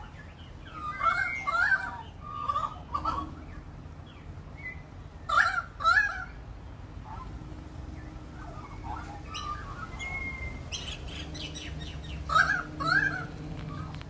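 Australian magpie carolling: pairs of loud warbled notes about a second in, at about five and a half seconds, and near the end, with quieter warbling between them.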